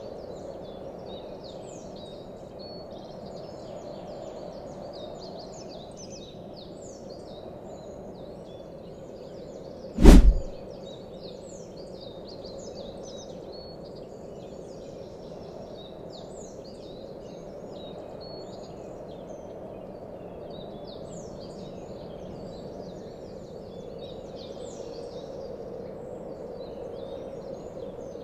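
Background ambience of many small birds chirping over a steady outdoor noise bed. About ten seconds in, a single loud, deep boom fades out within half a second; it is a section-transition sound effect.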